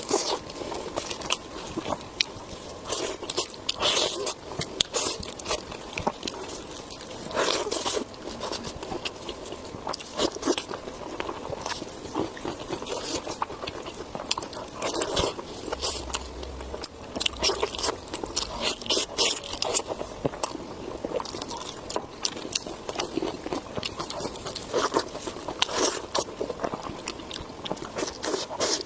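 Eating sounds of pork being bitten and chewed: irregular crunchy bites and wet, clicky chewing, a fresh burst every second or two.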